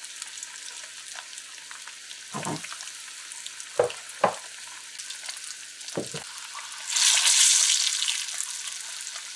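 Flour-coated boiled eggs frying in hot oil in a small karahi: a steady sizzle, with a few knocks as eggs go in and are moved about with a metal spoon. About seven seconds in, the sizzle surges loudly for a second or so as an egg is shifted in the oil. The flour coating keeps the oil from spattering.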